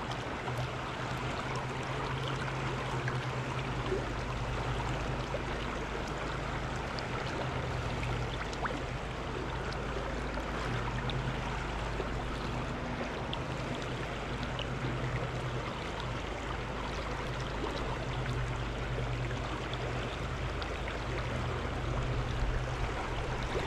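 Steady rush of flowing river water, with a low steady rumble underneath.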